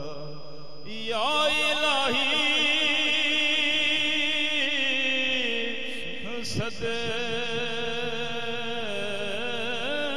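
A man singing a devotional Urdu salaam (naat) into a PA microphone. He draws out long, ornamented notes with a wide vibrato over a steady low drone. There is a brief knock about six and a half seconds in.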